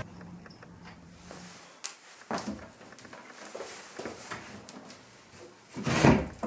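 Old kitchen cabinets being handled during tear-out: a few scattered wooden knocks and clicks, then a louder clatter about six seconds in.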